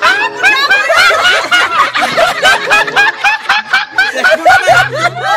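A group of people laughing together, loud and sustained, with several voices overlapping.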